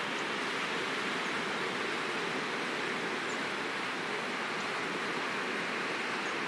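Steady wash of small waves breaking along the shore: an even, unbroken rushing with no single swell standing out.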